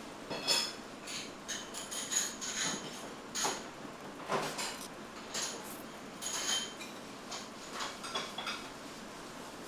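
A person eating noodles and rice with chopsticks: a series of short slurps and chewing sounds, with light clinks of chopsticks against ceramic bowls and plates.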